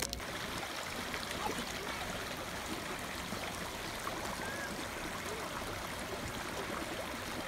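Shallow, clear stream running steadily over and around rocks, with the continuous babble and gurgle of water tumbling through small drops between the stones.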